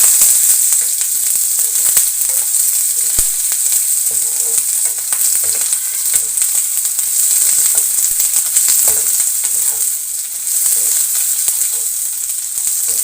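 Rice frying in hot oil in a pan for chicken fried rice, a steady high sizzle with scattered clicks and scrapes as it is stirred.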